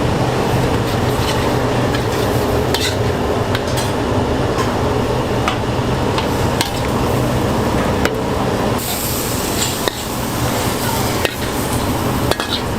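Stir-frying in a wok: a metal ladle stirring and clinking against the pan while food sizzles over a steady low hum.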